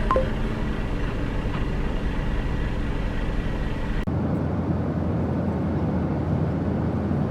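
Steady low rumbling noise of a vehicle in motion, which changes abruptly about four seconds in.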